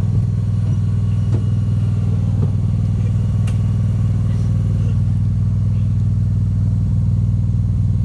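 Riding lawnmower engine running steadily, with a few faint clicks.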